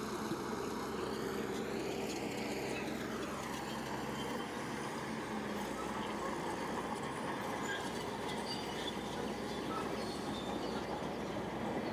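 Heavy earthmoving machinery's diesel engine running steadily, with a high whine that falls in pitch about two to three seconds in.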